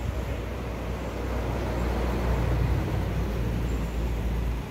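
Low engine rumble of a motor vehicle, swelling to a peak about two to three seconds in and easing off, then stopping abruptly at the end.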